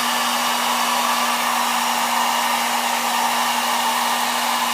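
Hot-air blower running steadily, a constant rushing hiss with a steady hum. It is heating the phone's screen to soften the adhesive so the glass lifts off the digitizer.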